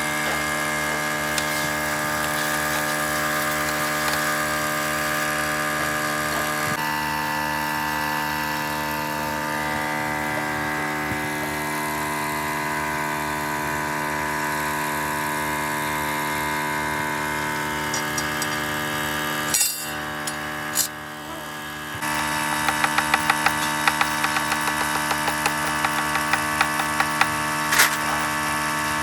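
A machine running with a steady hum. About three quarters of the way through it pauses with a couple of sharp knocks, then runs on with a quick series of sharp metallic taps or knocks, about two a second.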